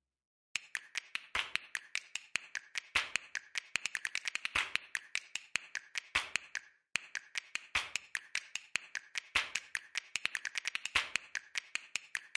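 Fast, uneven run of sharp clicks and taps, several a second, breaking off briefly about seven seconds in.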